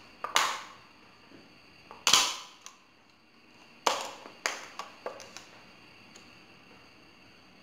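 Thin plastic bottle pieces being handled and bent, giving a string of sharp cracks and pops, the loudest about two seconds in and a quick cluster of four or five around four to five seconds in.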